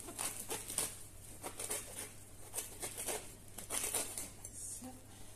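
Knife sawing through the crust of a freshly baked pretzel bun: a quick, irregular run of short, crackling crunches.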